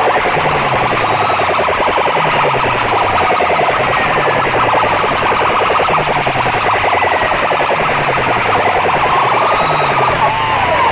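Loud, distorted electronic siren-like tones played at full volume through stacks of horn loudspeakers, over a falling bass note that repeats about once a second. Near the end the tones swoop up and down like a siren.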